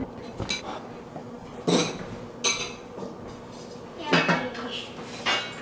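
Dishes and cutlery clinking and clattering, about five separate clatters spread a second or so apart.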